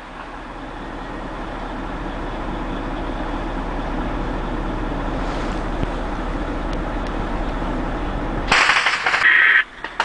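Truck engine and road noise in the cab of a moving convoy truck, a steady rumble growing slowly louder. About eight and a half seconds in it cuts off abruptly and a loud hissing burst follows for about a second.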